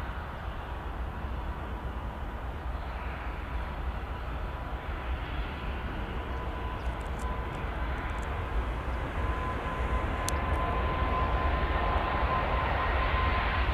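Airbus A380's four Engine Alliance GP7200 turbofans running, with a steady whine over a broad jet rumble that grows louder as the aircraft rolls nearer.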